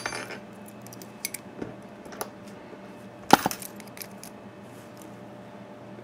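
Scattered small metallic clicks and clinks as a key on a keyring is fitted into a removed brass padlock cylinder, with one sharp click about three seconds in and the rest faint.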